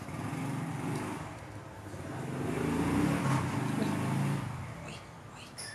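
A motor vehicle engine running past, growing louder to a peak about three seconds in and then fading away.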